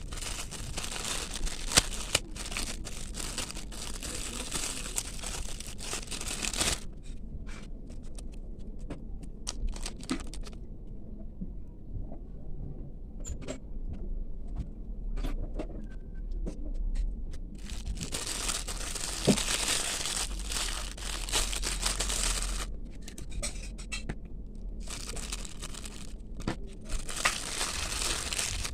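Packaging being crinkled and torn open by hand, in three long stretches of rustling, with small clicks and taps in between.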